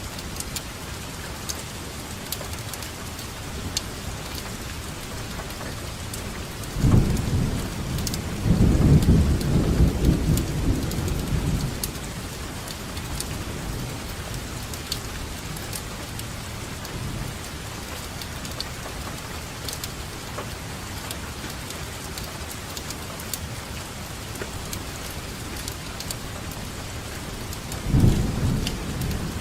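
Steady rainfall with scattered drop ticks. About seven seconds in, a low roll of thunder swells and rumbles for about five seconds before fading, and another roll begins near the end.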